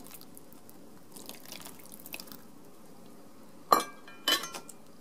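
Water poured from a kettle over a sheet of fried tofu (aburaage) in a plastic colander, trickling and dripping through the mesh as the pour ends, to rinse off the surface oil. Two sharp ringing clinks come near the end.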